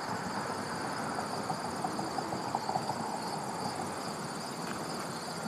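Crickets trilling steadily, a high, finely pulsing song at two pitches, over an even background hiss.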